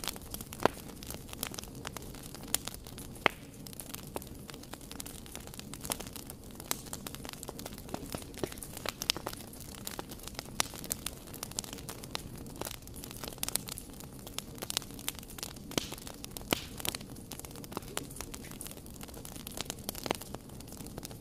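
Wood fire crackling: burning logs give off irregular sharp pops and snaps, a few louder than the rest, over a steady low rush of flame.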